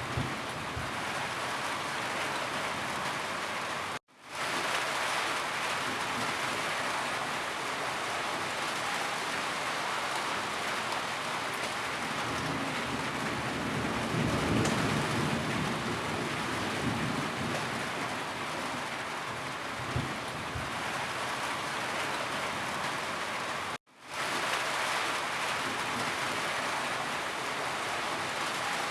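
Steady rainfall, with a low rumble swelling and fading about halfway through. The sound cuts out abruptly twice, about 4 seconds in and again after about 24 seconds, and fades straight back in each time.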